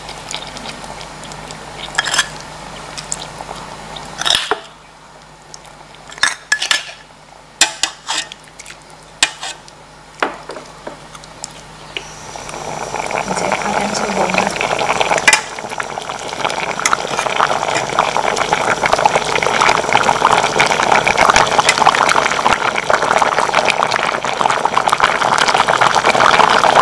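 A fish braise in a pot, basted with chili sauce stirred into its own broth: a scatter of sharp clinks of spoon and bowl against the pot in the first half, then the braising liquid bubbling loudly at a boil from about halfway on.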